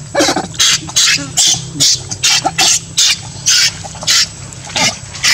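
Baby macaque shrieking over and over in short, high squeals, about two a second, over a low steady hum.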